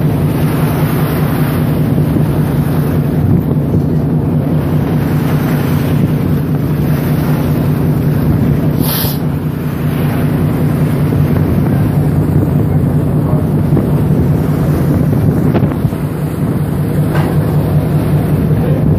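Ferry engines running with a steady low drone while underway, with wind rushing over the microphone. A brief high-pitched blip about halfway through.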